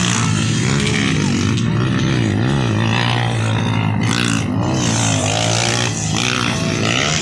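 Motocross dirt bike engines revving hard, their pitch rising and falling again and again as the bikes pass.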